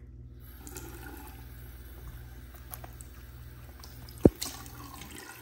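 Bathroom sink faucet turned on and running into the basin, with one sharp knock about four seconds in.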